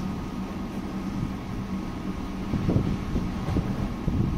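A boat's engine running steadily, a constant low hum over a low rumble.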